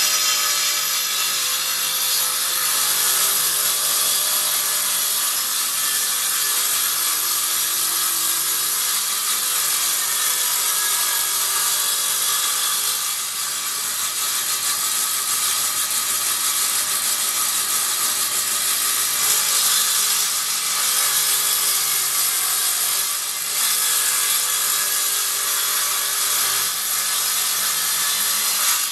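Table saw ripping a dark hardwood board lengthwise, the circular blade running with a steady high whine as the wood is fed through. The loudness dips briefly twice.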